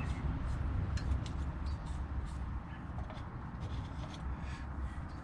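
A low rumble that slowly fades, with faint, short high chirps or clicks scattered over it.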